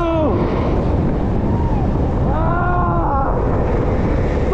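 Heavy wind rushing over the microphone as a downhill skateboard runs at speed, with spectators' long, drawn-out shouts rising and falling over it a few times.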